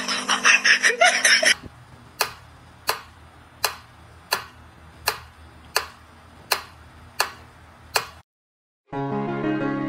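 Mechanical pyramid metronome ticking steadily, about one tick every 0.7 seconds, nine ticks in all, then cutting off.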